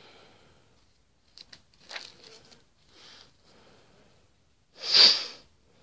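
Clear plastic bag crinkling and rustling in a few short bursts as it is handled, followed near the end by a single short, loud rushing noise.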